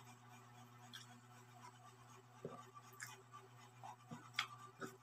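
Faint eating sounds of a man eating rice with his hand: soft chewing and mouth smacks, and fingers scraping rice on a plate. They come as a few scattered clicks, the sharpest about four seconds in, over a steady low hum.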